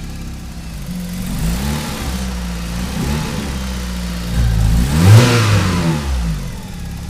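Opel Calibra engine idling and being revved, running on newly replaced spark plug wires. There are a few short blips, then one bigger rev about five seconds in that climbs and drops back to idle.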